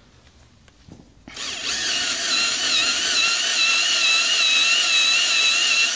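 Cordless drill driving a countersink bit into a drilled hole in a steel wheel's centre. It starts a little over a second in and runs steadily, a high whine that wavers slightly in pitch as the bit cuts.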